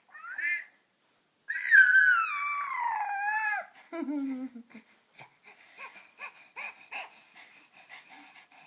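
High-pitched squeaky vocalizing: a short rising squeak, then a long loud whine that falls in pitch over about two seconds, a shorter lower whine, and a string of faint quick squeaks to the end.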